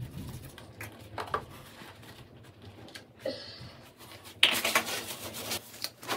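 Handling noise: light knocks and rustling, with a louder rub or scrape lasting about a second, about four and a half seconds in.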